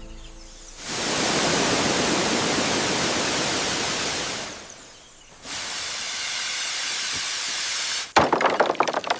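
Two long bursts of steady hissing noise, each about three seconds, starting and stopping abruptly with a short gap between them, followed near the end by a rapid run of sharp cracks and clicks.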